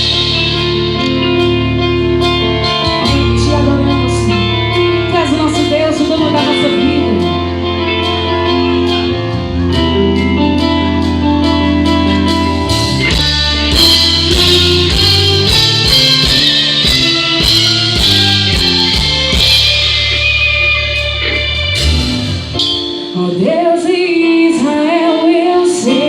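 Live gospel band playing an instrumental intro on keyboards, electric guitar, bass and drums with cymbals. About 23 seconds in the bass and drums drop out and a woman's voice begins singing over the keys.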